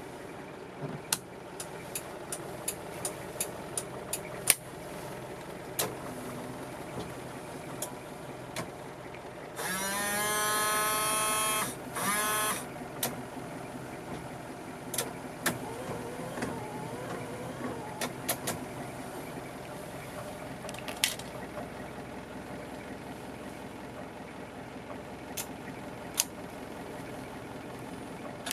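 Windscreen washer pump whining for about two seconds, rising in pitch as it spins up, then a second short squirt, over the steady idle of the 2.4-litre Toyota 2L diesel. Sharp clicks of dash switches come in a quick run before it, and the wipers sweep the glass after it.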